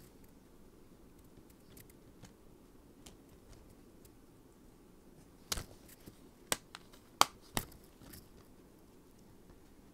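Plastic DVD case and discs being handled: a quick run of about five sharp plastic clicks and snaps a little past halfway, over faint room noise.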